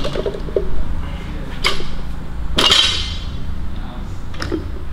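Metal gym weights clanking: three separate sharp clanks, the middle one the loudest and ringing briefly.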